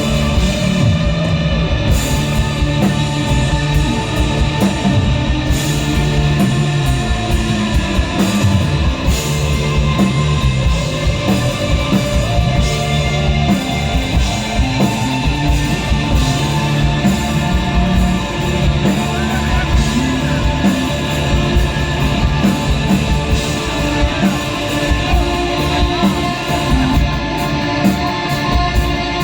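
A desert rock band playing live: electric guitar over drums, loud and steady, with no break.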